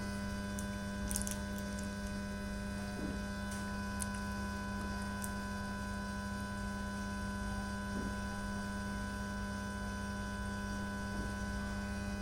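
Continuous hum and hiss from a speaker driven by a Lepy LP-2020 Class T mini amplifier, steady and unchanging with a strong low buzz and several fixed higher tones. The owner says this noise comes from the speaker even with the amplifier's volume at zero and the audio input removed, and takes it for a fault in the amplifier.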